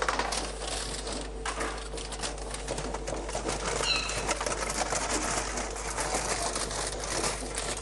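Knife chopping on a cutting board in a kitchen: rapid, irregular light knocks and clicks over a steady low hum, with a brief high chirp about four seconds in.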